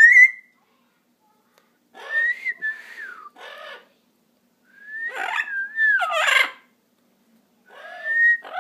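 Amazon parrot whistling in four short bouts: a brief rising whistle at the start, then three gliding, warbling whistle calls mixed with rougher squawky sounds, about two seconds apart.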